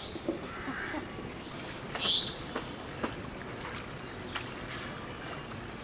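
A bird calling: one short, high, rising call about two seconds in, with a fainter call near the start and a few faint taps later.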